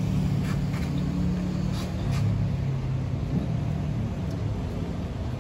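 Street traffic: a motor vehicle engine running with a steady low hum, with a few faint ticks over it.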